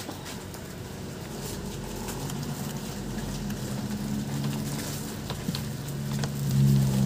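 Plastic snack packets crinkling and rustling as they are pulled off shop shelves, over a low steady hum that grows louder near the end.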